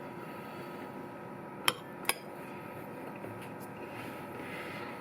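Two sharp clinks of a spoon against a dish, about half a second apart, over a steady low hum.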